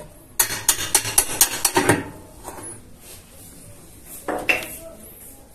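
A wrench on the washing machine's basket nut being struck, a quick run of sharp metal-on-metal blows lasting about a second and a half, to break the nut loose so the basket can come out. A few lighter metal clinks follow.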